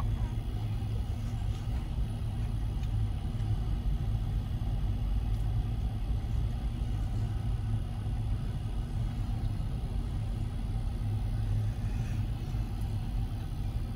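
Freight train of enclosed autorack cars rolling through a grade crossing, a steady low rumble muffled inside a car's cabin.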